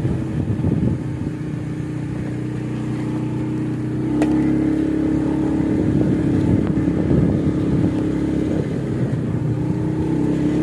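Motorcycle engine running under way, a steady drone that gets louder about four seconds in as the throttle opens.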